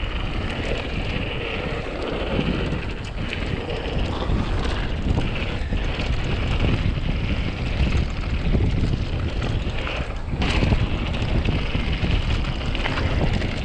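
Wind buffeting an action camera's microphone as a mountain bike rolls downhill at speed, with the tyres crunching over dirt and stones and the bike rattling in small, constant knocks.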